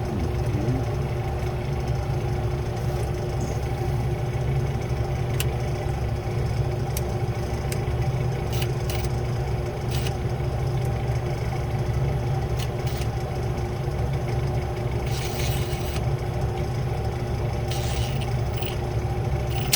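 Steady low machine hum with a few even tones in it, loud throughout. Scattered light clicks and a couple of brief scrapes of hand work on small metal parts sit over it.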